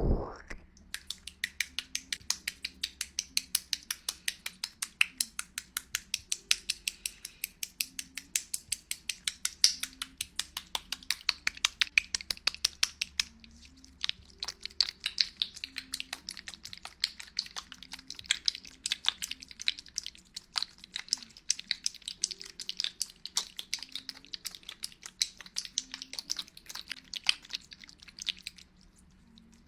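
Close-miked ASMR tongue clicking: rapid crisp mouth clicks, about four a second, with a short break about halfway through.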